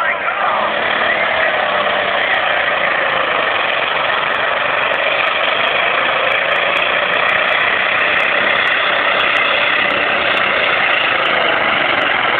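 A competition puller's engine running hard under load during a pull, a loud steady drone whose pitch sags and climbs back as it drags the sled.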